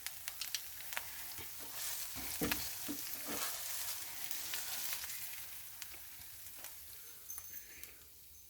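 Food sizzling in a hot skillet, with spatulas scraping and tapping against the pan, busiest a couple of seconds in and easing off near the end.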